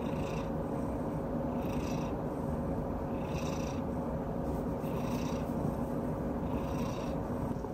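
A domestic cat purring steadily while held and cuddled, a continuous low rumble with a fainter higher hiss recurring about every second and a half.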